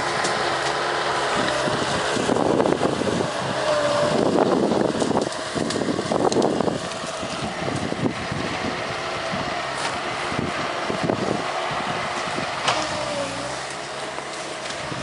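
Bobcat S185 skid steer's diesel engine running steadily under work, with a louder stretch of crackling and snapping a couple of seconds in as the Brushshark tree shear cuts through cedar brush, and scattered snaps later. A short whine rises and falls twice.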